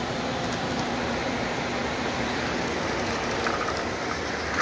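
HO-scale Chessie System model diesel locomotive running along the track with a steady whirring hum of its motor and wheels.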